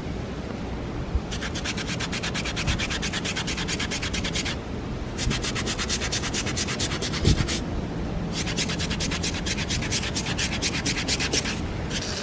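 Toothbrush bristles scrubbing a foam deck pad (SeaDek) with cleaner, in rapid, even back-and-forth strokes. The scrubbing comes in three bouts, stopping briefly twice.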